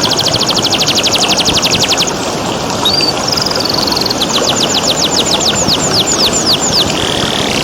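Domestic canary singing: a fast trill of rapidly repeated notes, then a short warbled phrase, then a run of slower downward-sweeping whistles. A steady rush of flowing water runs underneath.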